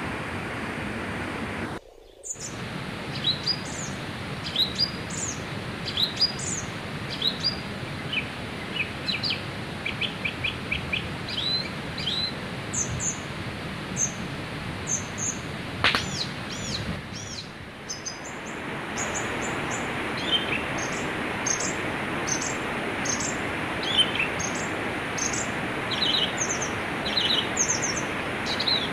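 Small birds chirping in short repeated calls over the steady rush of a river. The sound drops out briefly about two seconds in.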